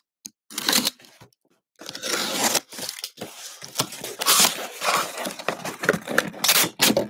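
Packing tape on a cardboard box being cut and torn, then the cardboard flaps scraping and rustling as the box is pulled open, in irregular strokes that come thicker from about two seconds in.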